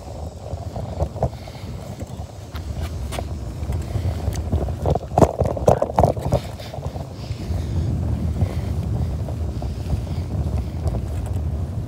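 Wind rumbling on a phone's microphone, a steady low rumble, with a few sharp knocks and rattles about five to six seconds in.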